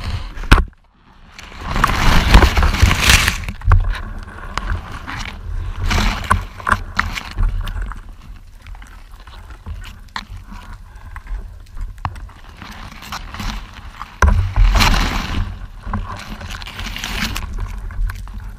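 Underwater audio from a camera in a waterproof housing: muffled rushing and sloshing of water with scattered clicks and knocks. There are two louder surges of rushing water, about two seconds in and again about fifteen seconds in.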